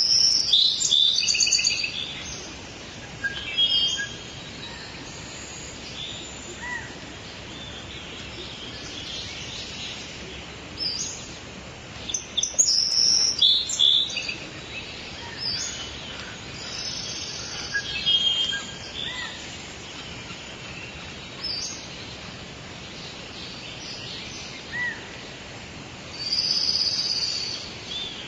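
Several songbirds singing and chirping over a steady background hiss, with louder bursts of song near the start, around the middle and near the end.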